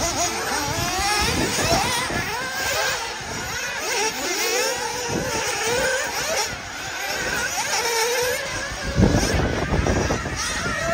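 Several nitro RC buggy engines whining high, their pitches rising and falling and overlapping as the cars accelerate and brake around the track. Near the end, wind buffets the microphone.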